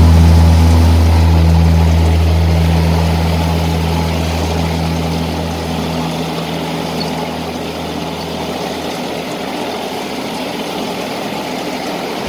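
Tractor engine running steadily under load, driving a disc super seeder through its PTO shaft. A deep, steady engine hum that grows quieter over the first half, then holds level.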